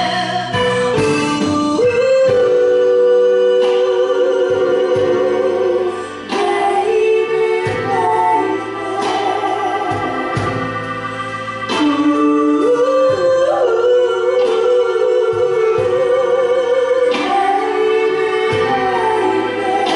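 Live band music with a singer holding long notes with vibrato.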